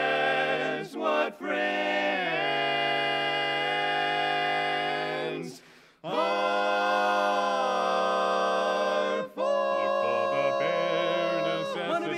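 Male barbershop quartet singing a cappella in close four-part harmony, holding long sustained chords. The chords break off briefly about a second in and again just before six seconds, and a livelier passage with moving notes follows from about nine and a half seconds.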